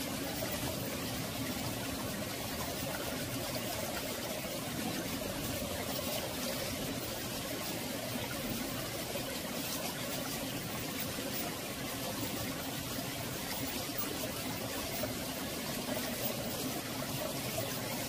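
Mountain valley stream flowing steadily over rocks, a continuous gurgling and trickling with a rolling, bubbling quality.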